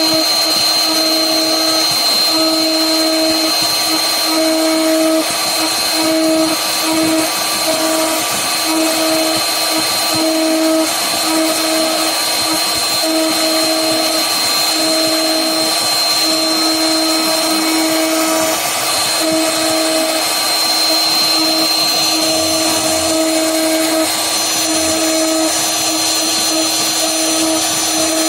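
CNC router spindle running with a steady high whine as its V-bit engraves a pattern into wood, with a hiss of cutting noise. A lower hum comes and goes in short spells every second or so.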